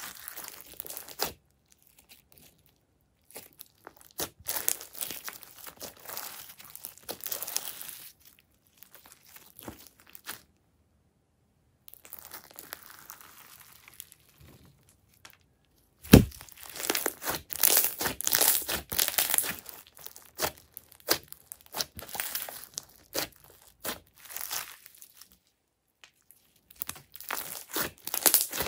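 Hands kneading, stretching and pressing glossy slime full of small foam beads: irregular runs of small sticky clicks and pops, broken by a few short pauses. One sharp pop about halfway through is the loudest.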